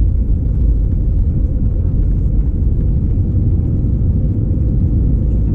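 Cabin noise of an Airbus A319-111 during its takeoff run: a steady, loud, deep rumble from its CFM56-5B engines at takeoff thrust, heard from a window seat by the wing.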